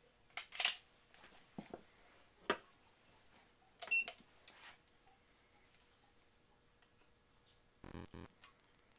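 Faint clicks and taps of a pistol and a digital trigger pull gauge being handled and set on the trigger, with one short electronic beep from the Lyman digital trigger pull scale about four seconds in.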